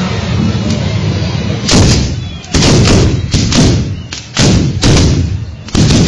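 Traditional muskets firing blank charges: about seven loud gun blasts in quick, uneven succession, each sharp and then fading.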